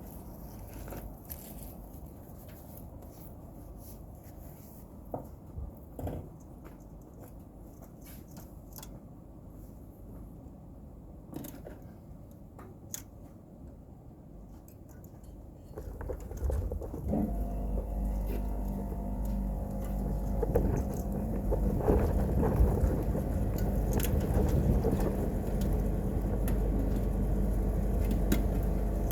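Scattered light clicks and knocks, then about halfway through a motor-driven machine starts and runs with a steady hum, getting louder over the first few seconds.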